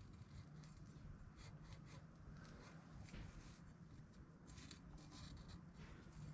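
Faint scratching of a Sharpie marker drawn in short strokes around a stainless steel exhaust pipe, marking a line to grind the pipe end square.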